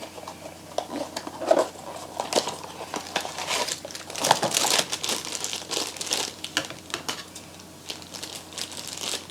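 Crinkly blind-box packaging being handled and opened by hand: irregular crinkling and rustling, busiest about halfway through, with a few light tearing sounds.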